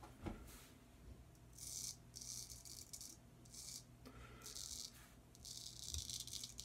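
W.H. Morley & Sons straight razor scraping stubble through shave lather, in a run of short, faint rasping strokes.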